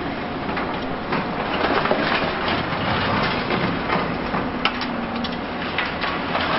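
Demolition noise from a high-reach excavator tearing down a concrete building: steady crunching and clattering of breaking concrete and falling debris, with many small cracks and one sharp crack about 4.7 seconds in.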